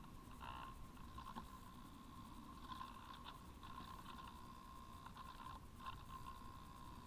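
Faint onboard audio from a camera riding on a Parkzone Radian Pro model glider in flight: a low wind rush with a steady thin whine and scattered faint chirps.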